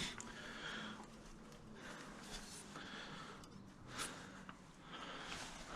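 Faint breathing and hand noise as a new ignition lead is pushed onto the ignition coil, with one short sharp click about four seconds in, as the lead's boot seats on the coil terminal.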